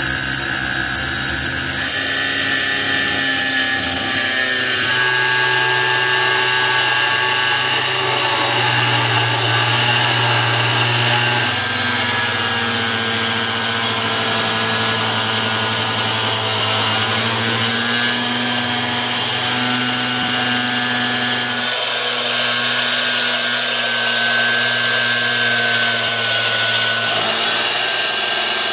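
Electric angle grinder with a cutting disc running and cutting through a plastic drum, its motor whine shifting in pitch several times as the load changes.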